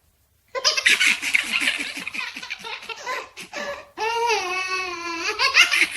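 Young children laughing and giggling in quick, choppy bursts, starting about half a second in, with one long, high-pitched held vocal sound about four seconds in.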